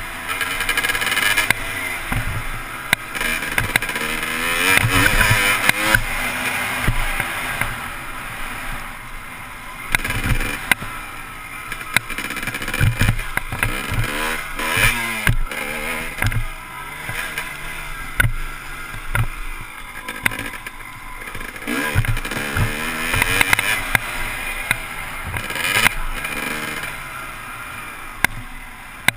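Dirt bike engine revving up and dropping off again and again through gear changes and throttle chops while riding a motocross track, heard through a helmet-mounted camera with rushing wind noise. A few sharp knocks from the ride cut through.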